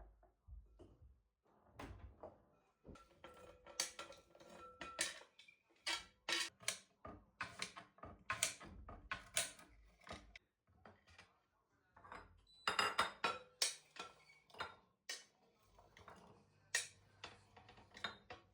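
Dishes and kitchen utensils being handled: a long string of light clinks and knocks, some ringing briefly, with a quick flurry of them about two-thirds of the way through.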